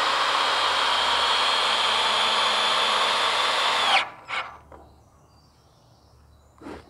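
Cordless drill driving a large screw through a pilot hole into a wooden beam, its motor whining steadily for about four seconds, then dipping slightly in pitch and stopping abruptly. A few light clicks follow, then a single knock near the end.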